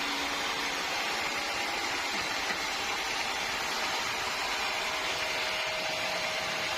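Sawmill machinery running steadily: an even hiss with a faint steady hum, with no cuts, strikes or changes in speed.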